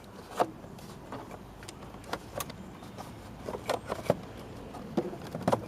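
Scattered clicks and knocks of a plastic air filter housing being twisted and pulled out of its rubber mounting bung, busier in the second half.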